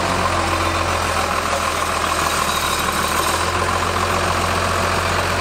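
Two-stroke chainsaw idling steadily.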